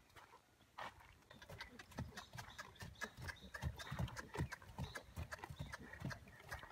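Hoofbeats of a ridden grey horse in a high-stepping dressage trot on soft dirt: dull thuds in a steady rhythm of about three a second, starting about a second and a half in.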